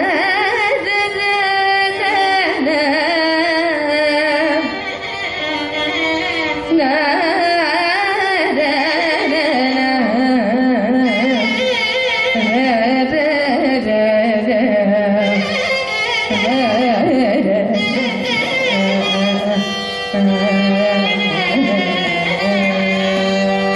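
Carnatic classical singing: a woman's voice in ornamented, sliding melodic lines, accompanied by violin over a steady drone.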